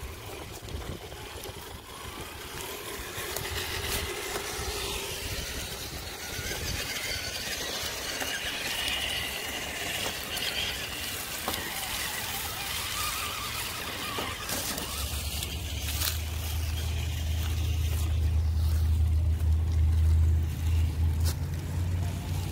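Radio-controlled crawler truck driving, its electric motor and gears whining and changing pitch with the throttle. A low rumble comes in about two-thirds of the way through and grows louder.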